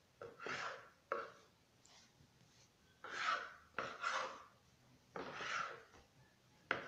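A knife cutting through soft dough against a cutting board, with the dough pieces being handled: about six short scraping strokes, some starting with a sharp tap.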